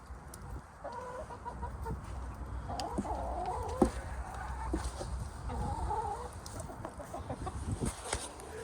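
Backyard hens clucking, with several drawn-out calls about one, three and six seconds in, and a sharp tap near the middle.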